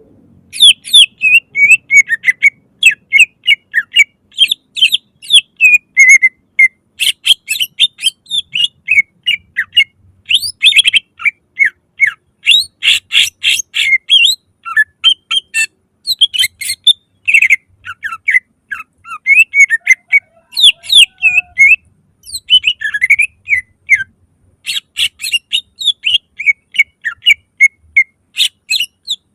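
Cucak ijo (green leafbird) singing a loud, fast song of sharp whistles and chirps, delivered in rapid runs with a few brief pauses.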